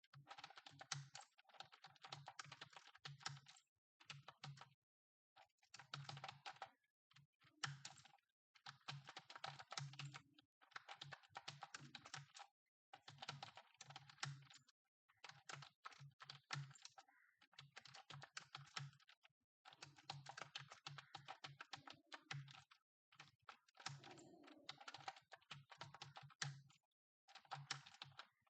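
Computer keyboard being typed on fast and continuously, a rapid clatter of key clicks in runs of a second or two broken by brief pauses. The sound is faint.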